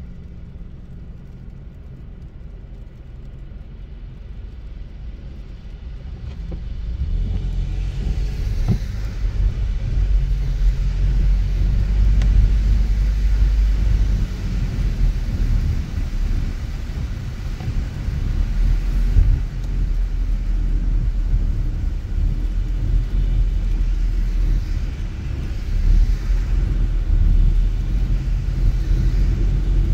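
Car driving on a city street: a steady low road and engine rumble that grows louder about seven seconds in.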